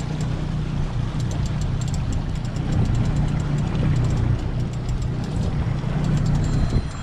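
Triple Mercury Racing 400 outboard motors running, a steady low drone under a rushing wash of wind and water.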